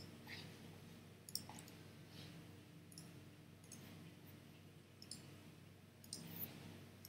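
Faint computer mouse clicks, about seven single clicks spaced irregularly roughly a second apart, over a low room hum.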